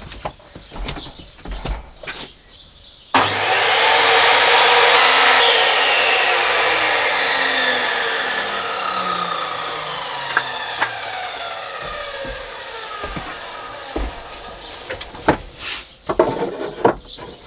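Electric power saw switched on about three seconds in, spinning up to full speed, then switched off and winding down over roughly ten seconds with its pitch falling steadily. Scattered knocks of wood being handled come before and after.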